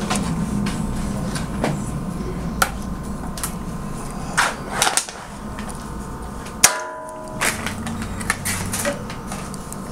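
Small scattered clicks and taps of metal surgical instruments, a scalpel and artery forceps, working at the incision over a steady room hum. One sharper metallic click with a short ring comes about seven seconds in.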